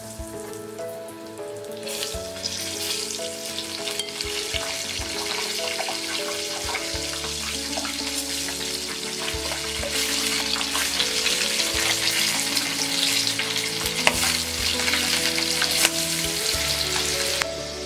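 Cornflour-coated sweet corn kernels deep-frying in hot oil, a dense sizzle that swells about two seconds in and grows louder later, with a couple of sharp pops near the end.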